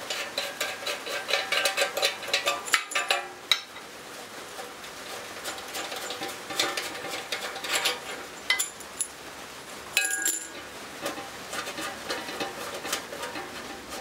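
Metal clinks, taps and rattles as coax jumper cables are worked loose from the CB-style coax connectors on metal RF filter canisters mounted on an aluminium rack panel. The small knocks come in scattered clusters, each with a brief high metallic ring; the loudest bunch is in the first three seconds, with another about ten seconds in.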